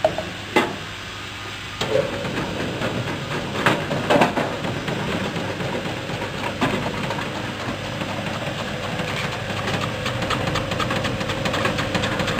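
Motor-driven chip slicing machine running steadily with a constant hum while produce fed through its feed tubes is sliced. A handful of sharp knocks and clatters come in the first few seconds as pieces are pushed in.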